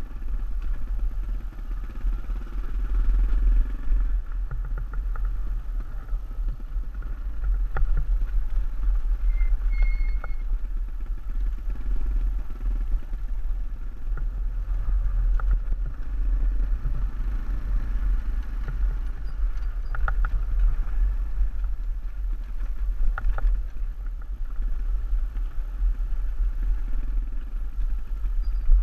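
Vehicle on the move: a steady low rumble with scattered rattles and clicks.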